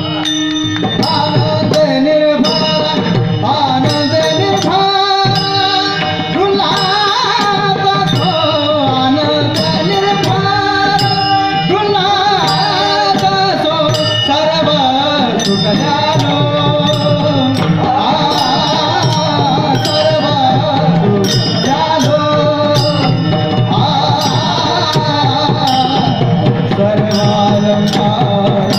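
Marathi Warkari devotional bhajan music: a melody, partly sung, over a steady beat of drum and jingling metal percussion.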